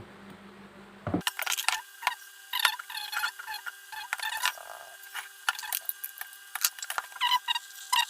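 Metal parts of an opened ceiling fan motor clicking and jingling as they are handled, a busy run of light metallic clicks starting about a second in.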